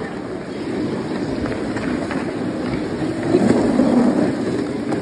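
Ice skate blades and a plastic seal-shaped skating aid gliding over rink ice, a steady low scraping noise that swells about three and a half seconds in.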